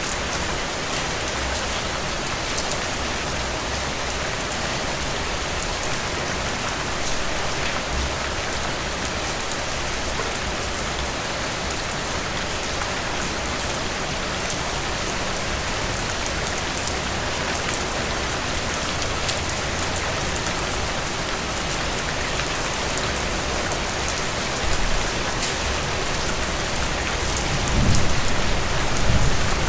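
Heavy rain falling steadily: a dense hiss with many separate drops hitting a surface. A low rumble swells up near the end.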